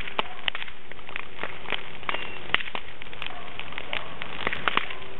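Large brush-and-branch bonfire burning, with a steady hiss and frequent irregular sharp crackles and pops from the burning wood.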